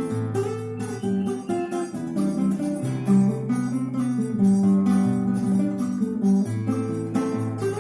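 Six-string acoustic guitar playing a forró tune: low bass notes held under a plucked melody, with rhythmic strums.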